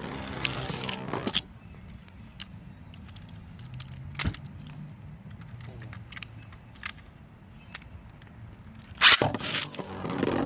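Plastic Beyblade tops and launcher gear being handled: scattered sharp clicks over a steady low hum, then two loud, short rasps about nine seconds in.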